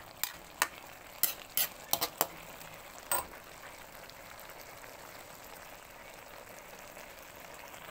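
A metal ladle clinks against the wok about eight times over the first three seconds. After that there is only the low, steady sizzle of the sardine-and-cabbage broth simmering in the pan.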